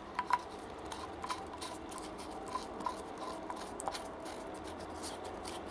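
A few light plastic clicks and rubbing as a detachable side handle is fitted and screwed into the side of a Michelin MOP300 orbital polisher, the polisher itself switched off.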